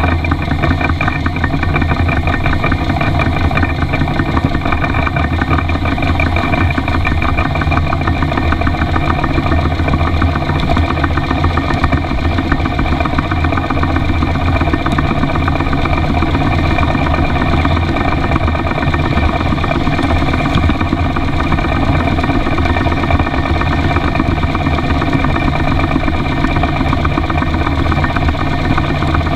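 Miniature live-steam model of an Isle of Man locomotive running along its track, its exhaust beating in a steady, even rhythm with the clatter of its running gear, heard close from the front of the engine.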